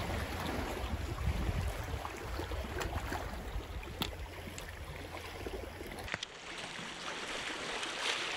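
Outdoor shoreline ambience: wind buffeting the microphone as a fluctuating low rumble over a steady wash of surf, with a few faint clicks. The wind rumble drops away abruptly about six seconds in.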